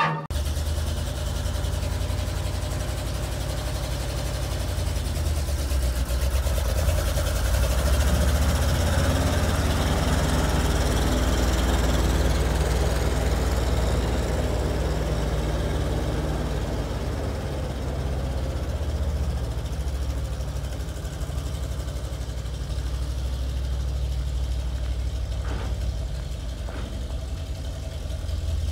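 A 1974 Chevrolet C65 truck's engine catches right at the start, then runs steadily with a deep, low sound. Partway through, its pitch rises and falls as the truck is driven.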